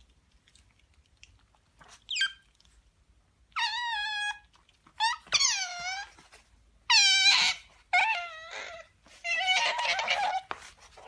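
Pet otter giving a series of about six high-pitched squeaky calls, each lasting under a second to about a second, several dropping in pitch, with the last call near the end rougher and buzzier.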